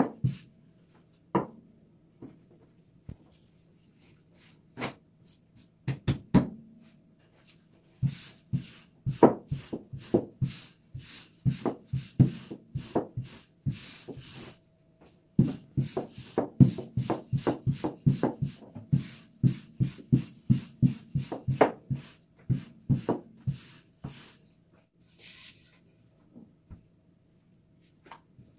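Irregular sharp taps and knocks with some rubbing, as of kitchen utensils working on a tray or board during pastry preparation. They are sparse at first, then come in dense quick runs for most of the rest, thinning out near the end.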